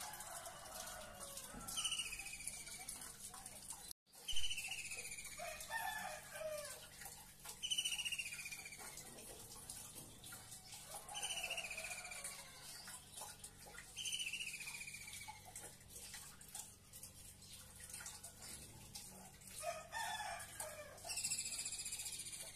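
Birds calling: a high call that falls in pitch, about a second long, repeats every few seconds, and lower, rougher calls come between some of them.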